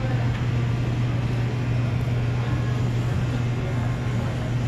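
Indoor supermarket background noise: a steady low hum under a constant wash of room noise.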